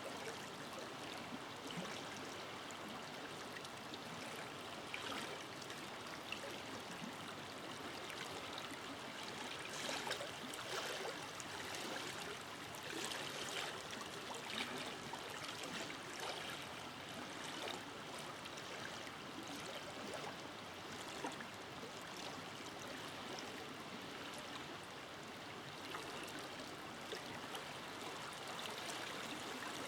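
Forest river flowing steadily over rocks, a continuous rushing with small splashes and trickles.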